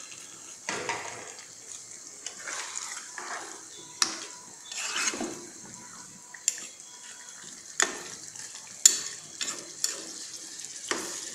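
A metal spatula stirring chicken and potato curry in a black kadai, swishing through the thin sauce with sharp irregular clinks and scrapes against the pan. A low sizzle of the simmering curry runs underneath.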